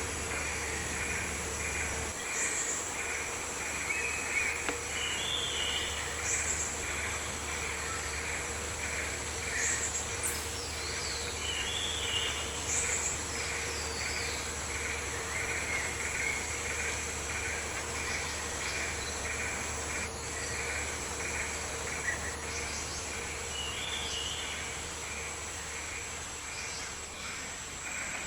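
Tropical rainforest ambience: insects chirring in a steady pulsing rhythm of about two or three pulses a second over a constant high insect whine, with a bird giving short high calls every few seconds.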